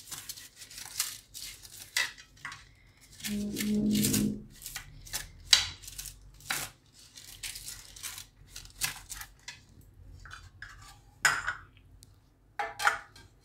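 Kitchen handling sounds: a silicone brush stroking and crinkling butter paper in a metal baking plate, with scattered light clinks and knocks of metal plates and bowls. The sharpest knock comes about five and a half seconds in.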